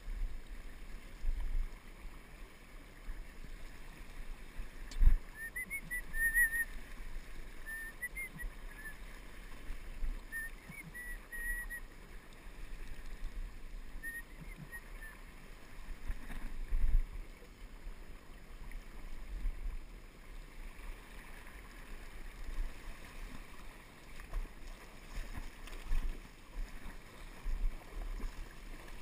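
Wind buffeting the GoPro's microphone over rushing river water, with a sharp knock about five seconds in and faint, wavering high whistle-like chirps between about six and fifteen seconds in.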